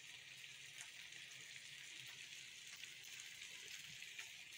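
Near silence: a faint, steady hiss with a couple of faint light ticks.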